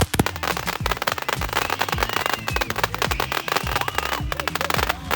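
Fireworks crackling and popping in rapid succession, with music playing underneath.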